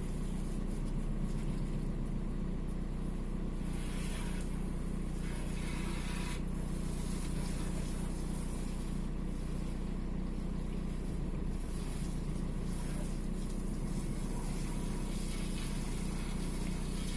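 Volkswagen 1.9 TDI AXR four-cylinder turbodiesel idling steadily, shaking at idle from an intermittent cylinder 4 misfire (fault 16688 / P0304).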